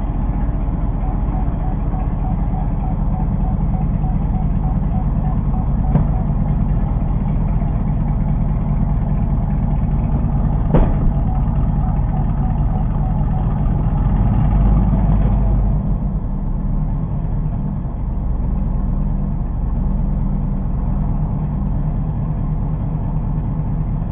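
Chevrolet Camaro 2SS's 6.2-litre V8 idling steadily, heard from inside the car through the dash cam's microphone. Two sharp clicks come through, and the engine gets briefly louder a little past the middle.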